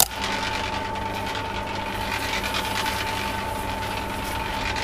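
Steady mechanical drone with a constant high whine over a low hum, starting abruptly.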